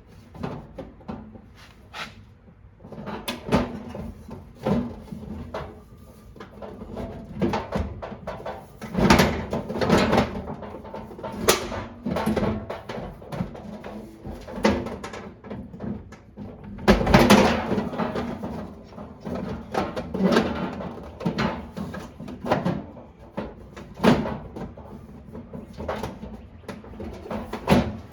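Irregular knocks, clicks and clatter of parts and tools being handled during hands-on repair work, with a cluster of louder knocks around the middle.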